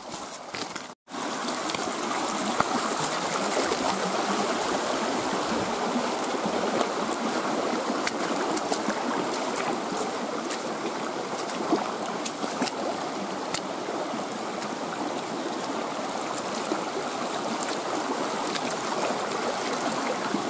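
Steady rush of flowing stream water. About a second in, the sound cuts out briefly before the louder, even water noise sets in.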